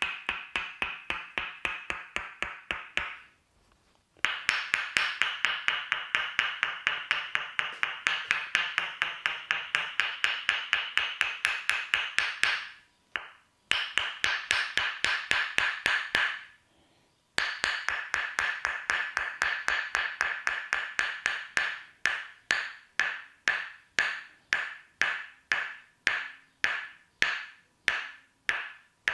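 Tok sen massage: a wooden mallet tapping a wooden wedge, a fast steady run of ringing woody knocks at about five strikes a second with a few brief pauses, slowing to about two strikes a second near the end.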